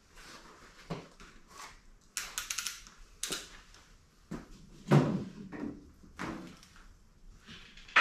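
Knocks and clatter of scrap metal and tools being handled and set down at a welding bench, with a short metallic rattle a little after two seconds and the loudest thump about five seconds in, among a few lighter knocks.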